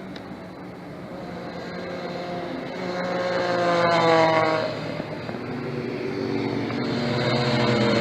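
Racing motorcycle passing at speed on a track. Its engine grows louder to a peak about four seconds in, then the note drops in pitch and fades as it goes by, and another bike's engine builds toward the end.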